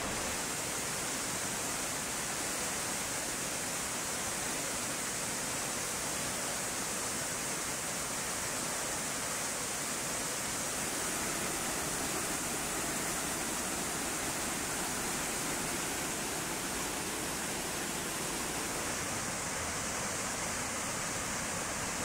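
Brandywine Falls, a waterfall pouring over rock ledges: a steady, even rush of falling water.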